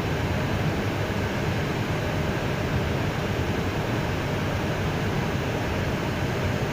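Steady cockpit noise of an Airbus A320 on approach: an even rushing hiss of air and engine and ventilation hum, with no change in level.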